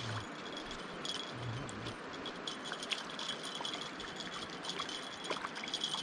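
Steady rush of river water, with a faint high rattling that comes and goes.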